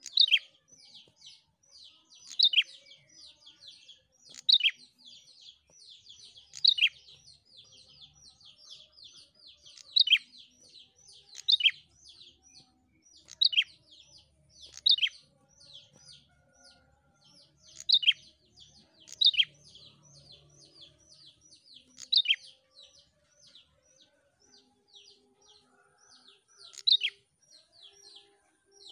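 Prenjak songbird calling: a fast, unbroken stream of short, high chirps, several a second, broken about every two seconds by a louder, sharper note.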